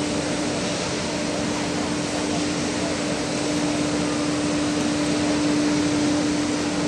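Steady rushing noise with a steady low hum running through it.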